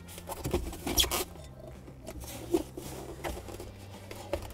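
Hands handling the scissor jack and tools in the foam tray of a spare tire well: scraping and rustling with a few sharp knocks, the loudest about a second in.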